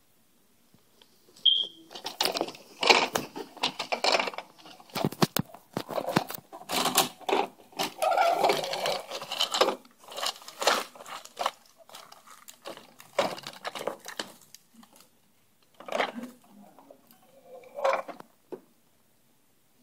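Plastic toy wheel loader being pushed and shoved through a pile of wooden blocks, paper and confetti on a hardwood floor: irregular clatter, clicks and scraping, busiest about halfway through.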